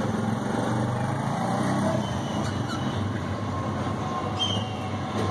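Steady low background rumble, with a few faint, short bird chirps from the budgies.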